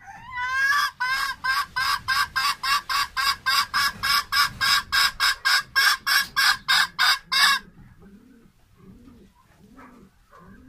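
Red junglefowl hen cackling: a rising note, then a fast, even run of loud clucks, about three a second, which stops suddenly about seven and a half seconds in. Soft, low clucks follow.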